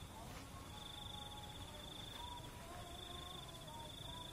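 An insect trilling at one high, steady pitch in runs of about two seconds with short breaks between them, over a quiet outdoor background.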